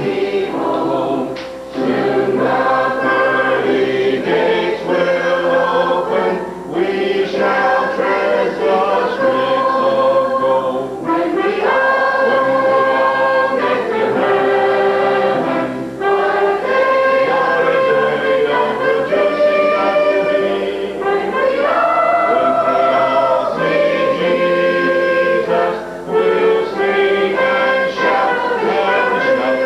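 Church choir singing a gospel song, many voices together in sustained phrases with short breaks between them.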